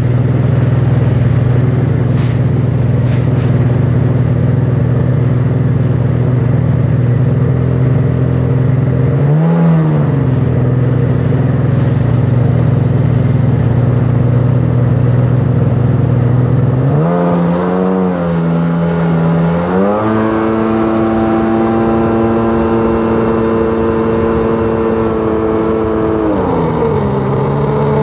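Sea-Doo personal watercraft engine running steadily at low throttle, with a brief rev about nine seconds in. Near the middle it revs up in steps to a higher steady speed, then drops back down near the end.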